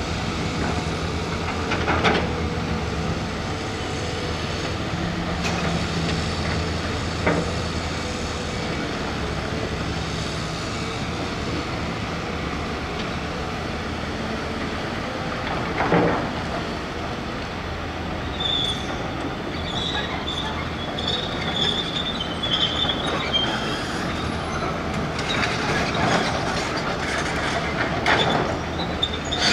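Tracked excavator's diesel engine running steadily as it works, with a few sharp knocks about 2, 7 and 16 seconds in. From about two thirds of the way through, an intermittent high squeal joins in.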